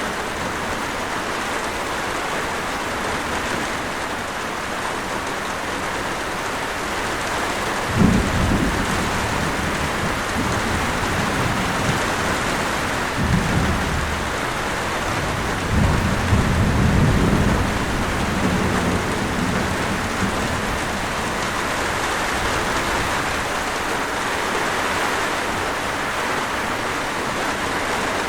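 Steady heavy rain falling, with thunder: a sudden deep clap about a third of the way in, then two more low rolls of thunder a few seconds apart.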